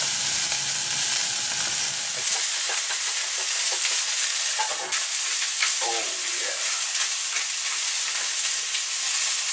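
Chicken breasts sizzling hot in olive oil in a frying pan: a steady frying hiss with a few small crackles and clicks.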